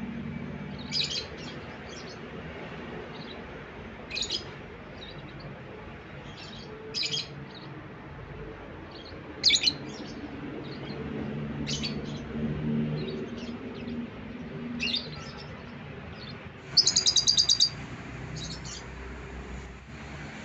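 Yellow lovebird calling: short, sharp, high chirps every two or three seconds, then a quick rattling run of about eight notes near the end, the loudest sound in the stretch. A low hum runs underneath.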